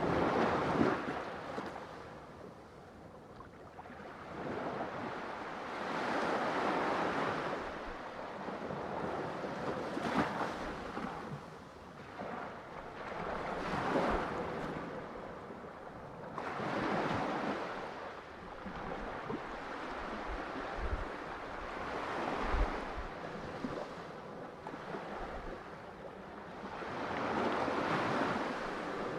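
Ocean waves breaking and washing up in slow surges, about seven of them, each swelling and fading over a few seconds.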